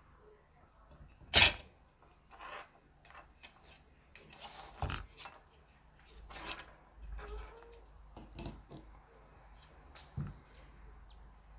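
Metal parts scraping and knocking as a metal mini USB fan is pried out of its cage by hand, with irregular clicks and knocks; the loudest, a sharp knock, comes about a second and a half in.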